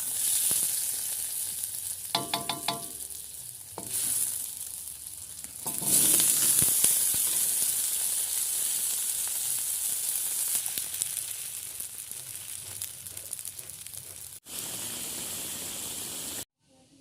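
Food sizzling in hot oil in a pan, with a quick run of ringing metallic clinks, like a spatula striking the pan, about two seconds in. The sizzle grows louder about six seconds in and cuts off abruptly near the end.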